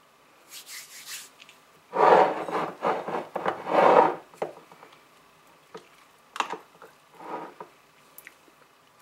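Rubbing and scraping noises from handling food things by hand: a loud stretch of about two seconds, then a few shorter scrapes.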